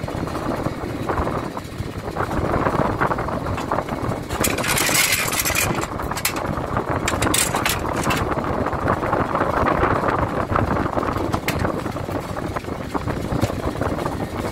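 Steady, loud engine drone of machinery, with brief hissing bursts about four to six seconds and seven to eight seconds in.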